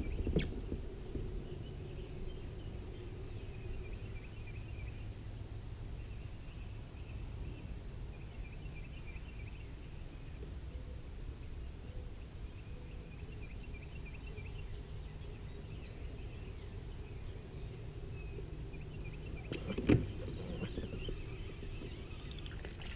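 Quiet lakeside ambience: a steady low rumble with faint birdsong chirping on and off throughout. A couple of clicks at the start and one sharp knock about twenty seconds in.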